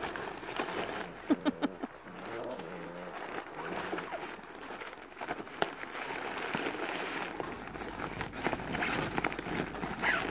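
Rottweiler puppies at play: a few sharp yips a little over a second in and low play-growling, then scuffling and rustling of the nylon play tunnel as they wrestle on it.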